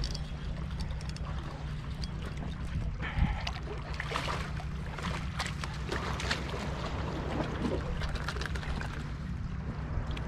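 Water sloshing and splashing against the rocks of a jetty, over a steady low rumble, with scattered sharp clicks and a louder knock about three seconds in.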